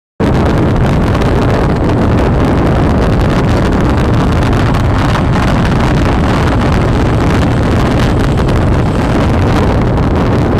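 Boba Fett's jetpack thrust sound effect, played as a continuous loop: a loud, steady rush of noise with a heavy low rumble, cutting in abruptly at the start.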